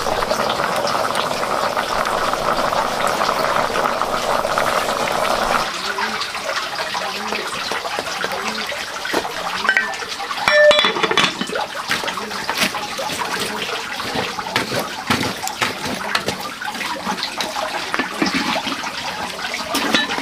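Water running steadily, cutting off abruptly about six seconds in, followed by scattered splashing and clattering knocks.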